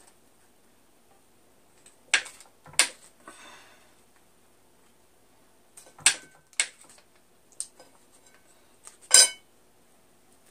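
A table knife clinking and tapping against a plate about six times, with pauses between, while margarine is spread on split biscuits; a couple of the clinks ring briefly, and the loudest comes near the end.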